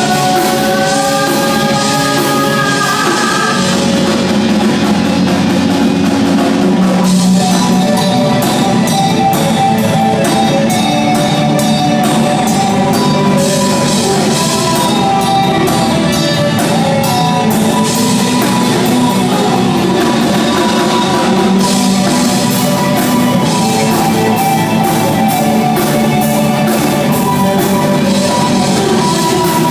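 Live rock band playing a rock song on drum kit, electric guitars, bass and keyboard. A gliding lead line stands out at the start, and the cymbal-driven drumming gets busier about seven seconds in.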